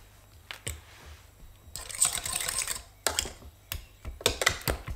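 Wire potato masher working stewed, pulpy gooseberries in a stainless steel saucepan: irregular clicks and taps of the metal masher on the pan, with a longer wet squishing stretch about two seconds in and a quicker run of taps near the end.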